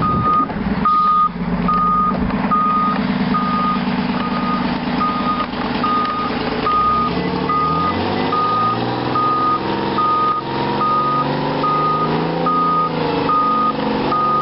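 A reversing alarm beeps steadily, a little more than once a second, over the running diesel engine of a Euclid R-22 water truck. About halfway through, the engine's pitch rises as the truck moves off under load.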